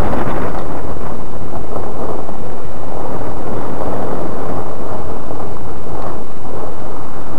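Loud, overloaded rumble of wind buffeting a hood-mounted camera's microphone, mixed with the engine and spinning tyres of a 2004 Cadillac CTS doing donuts in snow.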